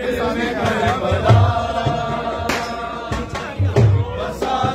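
Men's voices chanting a noha, the Urdu lament for Husain, with long held notes over clusters of low, rhythmic thumps.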